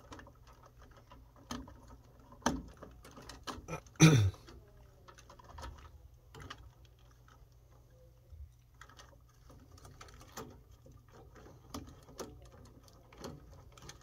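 Small clicks and rustling of wires as spade connectors are pushed onto the terminals of a furnace pressure switch, with two louder knocks about two and a half and four seconds in.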